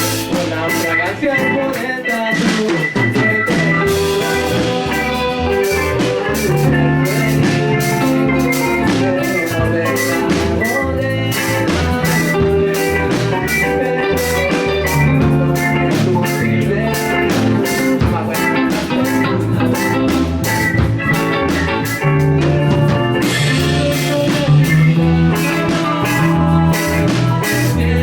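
Live band playing an instrumental passage: guitars, bass, keyboards and a drum kit keeping a steady beat, with an egg shaker.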